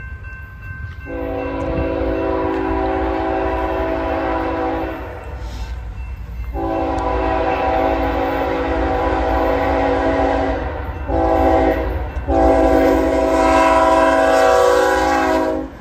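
BNSF diesel freight locomotive's multi-note air horn sounding the grade-crossing signal on approach: two long blasts, a short one, then a long one. A low rumble of the approaching train runs underneath.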